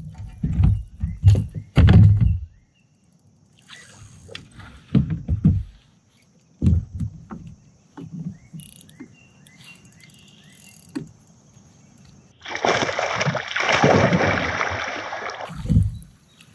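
Dull knocks and thumps on a fishing kayak, then, about twelve seconds in, some three seconds of loud splashing as a hooked smallmouth bass thrashes at the surface beside the kayak.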